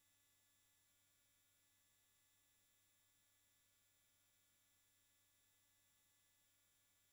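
Near silence: only a very faint, steady hum with no other sound.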